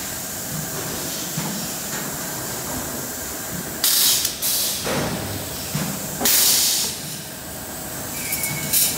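Pneumatic clamp and upset cylinders of a copper-aluminium tube resistance welding machine releasing air in loud hissing bursts, the longest about four and six seconds in and a shorter one near the end, over steady workshop noise.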